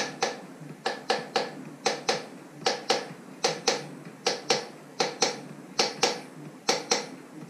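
Small hammer tapping the connecting rod cap of a Nissan 300ZX's VG30 V6 to work it loose from the rod: light, sharp metallic taps, mostly in quick pairs, about two a second.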